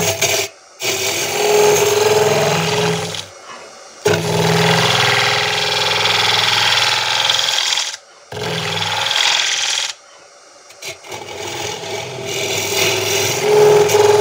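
Wood lathe running while a ring-cutter hollowing tool cuts into the spinning end grain: a steady rasping hiss of shavings coming off the wood over the low hum of the lathe. The sound drops out briefly four times.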